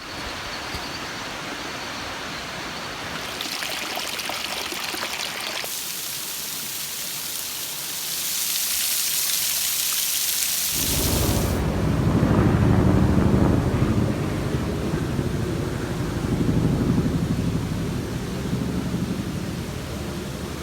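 Steady noise of rushing water, changing abruptly a few times. About eleven seconds in it turns from a high hiss to a deep rumble.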